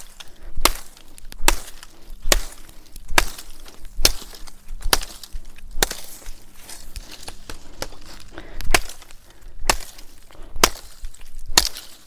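A machete chopping into a thin green sapling, one sharp strike just under every second. There are about eleven strikes, with a pause of a few seconds near the middle. The blade is a little dull.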